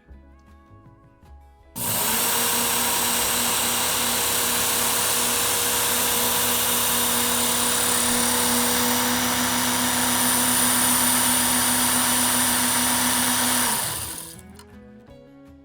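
Work Sharp Ken Onion Edition belt sharpener starting up about two seconds in, its motor and abrasive belt running with a steady hum and hiss while a knife edge is drawn across the belt. It winds down near the end, the pitch dropping as the motor stops.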